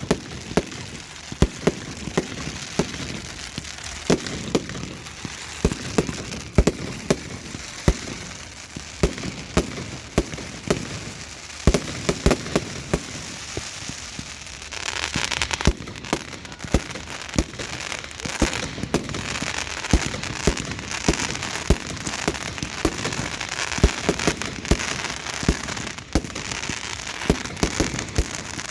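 Fireworks going off: a rapid, irregular series of sharp bangs over continuous crackling, the crackling growing denser about halfway through.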